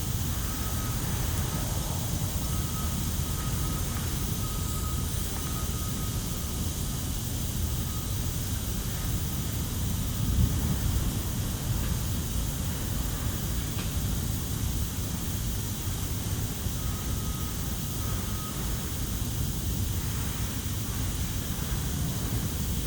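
Steady low rumble of distant aircraft and factory noise, with a faint high tone coming and going and one brief louder bump about ten seconds in.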